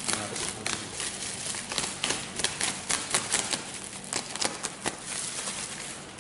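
Black bubble-wrap packaging being cut and peeled off a cardboard box: crinkling plastic with many sharp, irregular crackles and clicks, thickest in the middle of the stretch.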